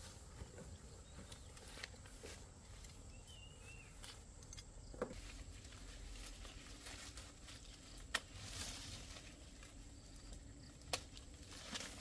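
Quiet background with a few sharp clicks or knocks spread through it and a short, high chirp about three seconds in.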